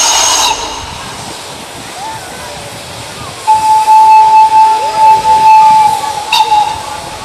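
Steam locomotive whistle: a short, shrill, many-toned blast with steam hiss cuts off about half a second in. A long, lower, steady blast follows from about three and a half seconds until shortly before the end.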